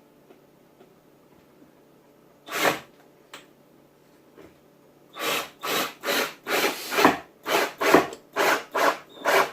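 Rubbing and rasping on wood: one stroke about two and a half seconds in, then from about five seconds a quick run of rubbing strokes, about two a second.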